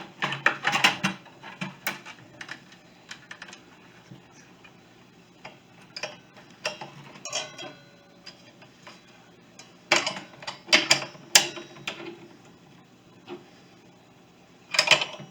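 Irregular metallic clicks and clinks of a 1/2-inch wrench working on a miter saw's blade arbor bolt, loosening it with the blade lock held in, in several short clusters with quiet pauses between.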